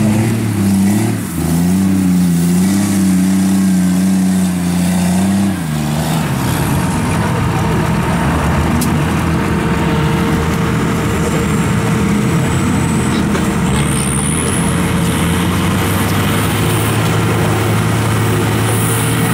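Off-road truck engine revving up and down under load in deep mud. About six seconds in the sound changes abruptly to a steadier engine drone.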